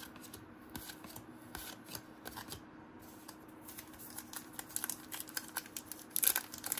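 1991-92 NBA Hoops basketball cards being handled and flipped through by hand: a run of small clicks and rustles of card stock, busier and louder in the last couple of seconds.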